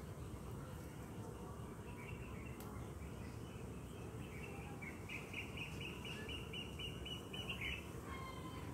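Honeybees humming over an opened box hive, a low steady hum. A bird sings a quick run of repeated chirps from about five seconds in until nearly eight.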